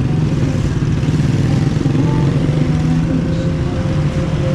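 Small motorcycle engine running steadily close by, a continuous low engine drone in street traffic.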